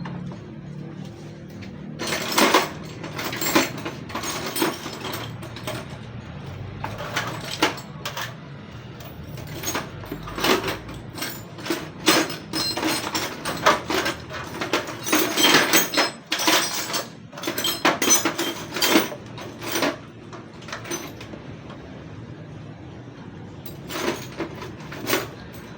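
Hand-tool work on an electric bike: irregular metallic clicks, taps and clanks, quieter for a few seconds near the end.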